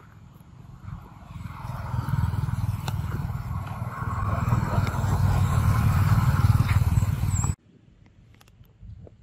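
A motor vehicle engine running and growing louder over several seconds, then cut off suddenly.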